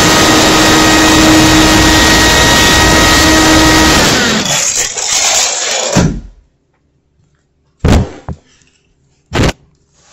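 Blaring, heavily distorted noise blast, extremely loud, with a few steady tones running through it, of the kind given a headphone warning. It dies away after about four seconds; after a silence come two sharp thumps about a second and a half apart.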